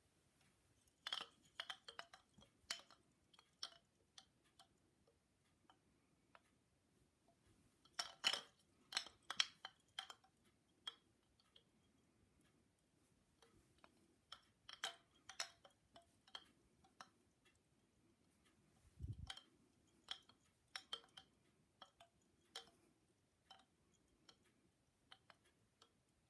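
Bamboo wind chime's four hanging tubes clacking against one another as a hand sets them swinging. The clacks come in four flurries, each thinning out over a few seconds. There is a low thump about 19 seconds in.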